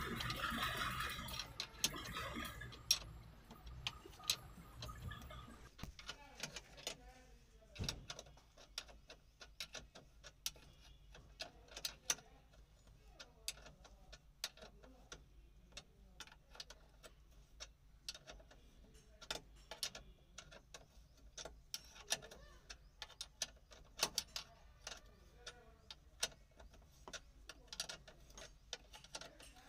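Irregular sharp clicks of hand tools working the steel mounting bolts of a Tata Ace steering column as they are fitted and tightened.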